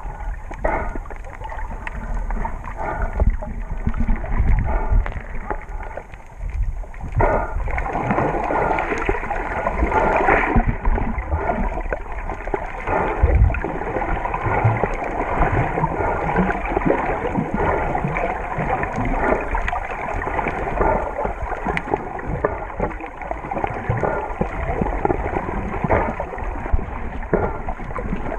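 Muffled sloshing and gurgling of seawater around a camera held just below the surface, with small bubbling crackles and splashes; it grows fuller about seven seconds in.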